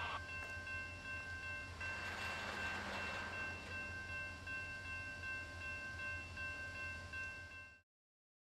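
A railroad crossing bell rings steadily while loaded oil tank cars roll past with a low, steady rumble of wheels on rail. The wheel noise swells about two seconds in, and all sound cuts off abruptly near the end.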